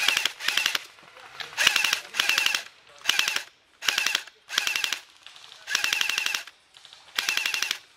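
Airsoft electric gun firing on full auto in about nine short bursts, each well under a second, with brief pauses between them.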